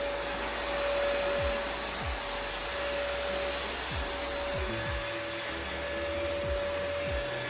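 Kurumi KV01 handheld mite vacuum running steadily as it is pushed over a spring mattress: an even rush of suction with a steady motor whine, and a few low thumps here and there.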